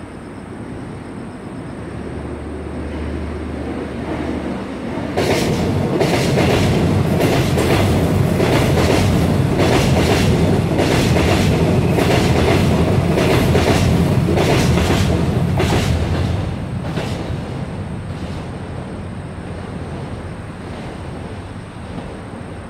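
Seoul Subway Line 7 electric train passing close by. Its rumble builds, jumps up suddenly about five seconds in, and gives way to a rapid run of wheel clacks over the rail joints for about ten seconds, then fades as the train moves away.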